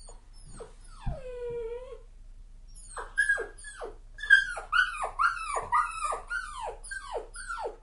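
Puppy whining, with one long whine that falls in pitch, then a rapid series of short, high yelps, each dropping in pitch, about two to three a second.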